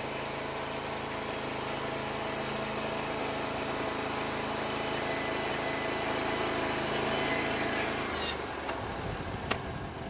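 Portable band sawmill cutting through a log: its 23 hp Briggs & Stratton engine runs steadily under load while the band blade saws. About eight seconds in the sawing sound cuts off abruptly as the blade clears the end of the log, followed by a single click.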